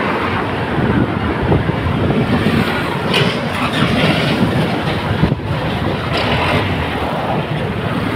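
Steady rumble and rush of a vehicle driving in city traffic, heard from inside its cabin.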